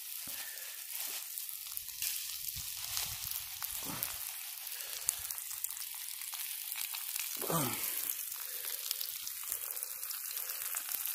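Breaded bass fillets sizzling in hot oil in a cast-iron skillet: a steady crackling hiss of frying.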